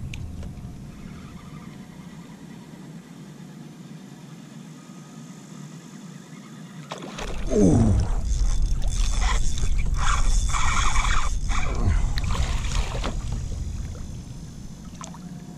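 Calm water for the first half. About halfway through, a small fish strikes a surface-retrieved lure with a sudden splash, then thrashes and splashes at the surface while being fought toward the kayak. The splashing fades near the end.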